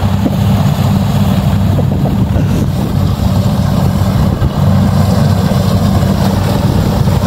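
Rice combine harvester's engine running steadily with a low, even hum as the machine cuts through the paddy.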